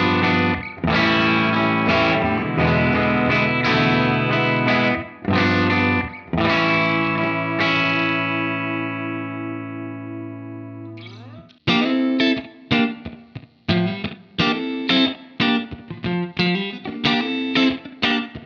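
James Tyler Studio Elite HD electric guitar played on a clean tone: strummed chords, then one chord left ringing and slowly fading. About eleven seconds in, the playing switches to short, choppy funk strumming.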